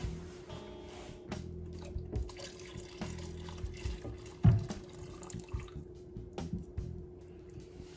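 Kitchen sink tap running with a few knocks as a saucepan is handled in the sink, the loudest knock about halfway through. Faint background music underneath.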